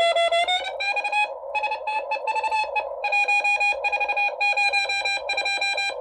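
Morse code (CW) signal received on a Xiegu G90 HF transceiver on the 40-metre band: a beep tone keyed on and off in dits and dahs over steady receiver hiss. Its pitch rises slightly just under a second in as the tuning dial is adjusted, and the keying stops at the very end.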